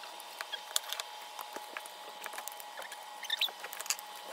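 Clear plastic shrink wrap being peeled off an album, crackling and crinkling in many small sharp clicks, over a faint steady hum.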